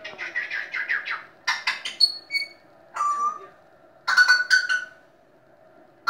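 Pet parrot chattering in short bursts of rapid squawks and pulsed calls, with a short whistle about three seconds in.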